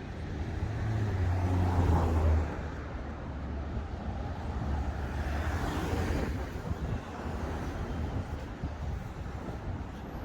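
City street traffic: motor vehicles passing, with a loud low rumble building to a peak about two seconds in and falling away, and a second car passing around five to six seconds in.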